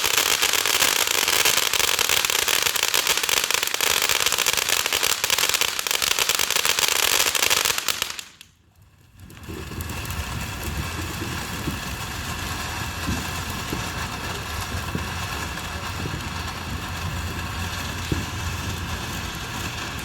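Consumer firework going off in a dense, continuous crackle for about eight seconds, then cutting off abruptly. After a brief near-silent gap, a quieter steady noise with a low rumble follows.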